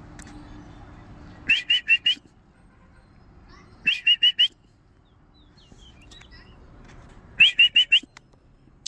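High whistled chirps in three bursts of four quick rising notes, about a second and a half in, at about four seconds and near the end.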